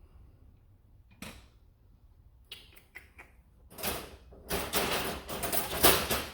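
Tools and small parts being handled at a workbench: a scrape, a few sharp clicks, then a stretch of loud rattling and scraping, as of rummaging through tools.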